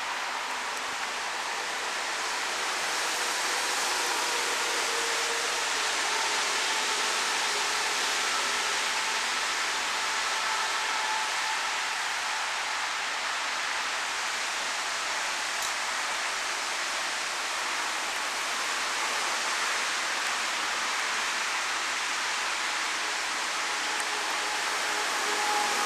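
Steady rushing hiss of rain, with faint, slightly wavering whines from electric railcars moving through the station.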